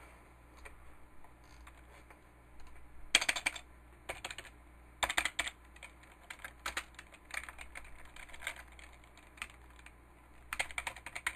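Computer keyboard typing in short bursts of quick keystrokes separated by pauses, the first clear burst about three seconds in.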